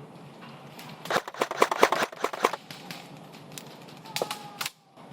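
Airsoft gun firing a quick string of about ten sharp shots, then a few more shots about four seconds in.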